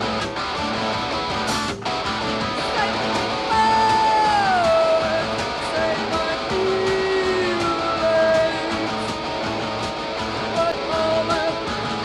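Post-punk rock band playing live: electric guitar and drums with cymbal hits, and a woman singing a long held note that slides down about four seconds in, followed by a lower held note.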